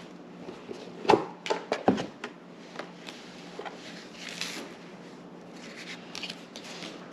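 Trading cards and booster-pack wrappers being handled on a table: a cluster of sharp taps between one and two seconds in, then soft rustling and sliding.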